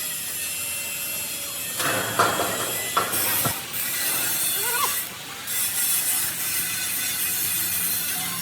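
Metalworking workshop noise: a steady hiss with a few sharp knocks and a brief squeal about five seconds in.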